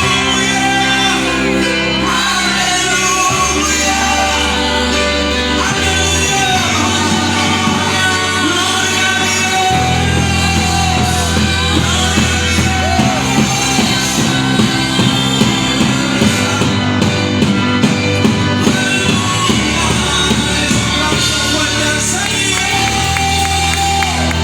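Live Christian worship music: a band with bass and a drum kit playing under singing voices. The drum hits stand out more clearly for a few seconds in the middle.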